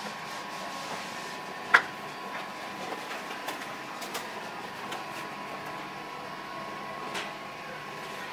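Light clicks and knocks of the 3D-printed PLA airframe parts being handled and fitted together, with one sharp click a little under two seconds in and a smaller one near the end, over a steady faint hum.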